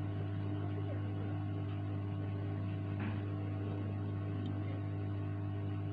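Steady low electrical hum with a few higher overtones, unchanging throughout.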